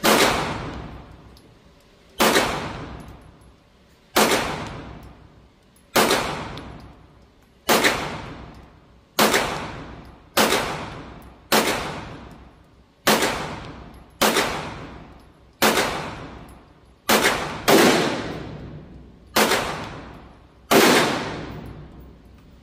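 Springfield Echelon 9mm pistol fired in slow, aimed single shots, about fifteen of them at roughly one shot every one and a half seconds. Each shot booms and rings out in the reverberation of an indoor range.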